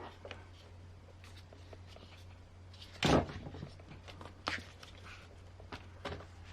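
Hard plastic knocks and clicks from an RC rock crawler's chassis and body being handled, the loudest a sharp knock about three seconds in, with a faint steady low hum underneath.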